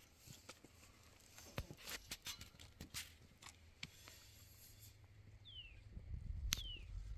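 Faint handling sounds of a canvas tent cover being pulled over a white pipe frame: scattered light clicks, taps and rustles of the fabric against the tubing. A bird gives two short falling chirps in the second half.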